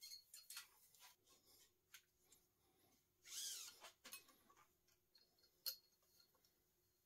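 Faint clicks and taps of a steel brake cable and its housing being handled and fed along a bicycle frame, with a brief scraping swish a little over three seconds in and a sharper click a little before six seconds.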